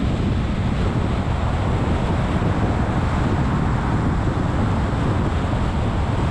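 Steady deep rush of wind and tyre noise from a car cruising at freeway speed, picked up by a camera mounted outside on the hood, with wind buffeting the microphone.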